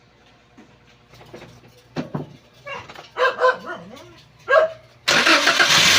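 A dog barking and yipping several times, with whining glides in pitch. About five seconds in, a loud steady mechanical rush starts suddenly and keeps running.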